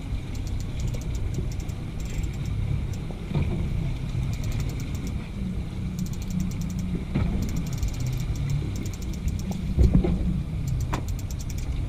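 Steady low rumble of the fishing boat's engines running, with runs of rapid ticking from the big-game reel as its handle is cranked to gain line on a hooked blue marlin. There are a few knocks, the loudest about ten seconds in.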